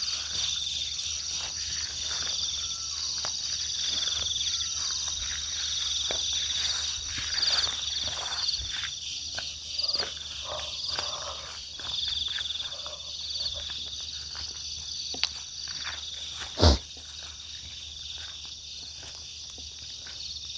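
Insects chirring steadily in the surrounding forest, with footsteps and rustling through undergrowth and one sharp knock late on.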